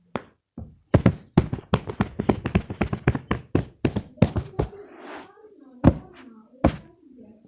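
A rapid run of sharp taps and knocks, about four to five a second, then a brief wavering pitched sound near the end, between a few last knocks.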